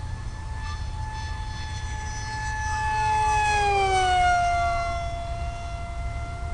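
Electric RC plane's motor and propeller whining in flight, growing louder as it passes close by about four seconds in, its pitch dropping as it goes past and then holding lower.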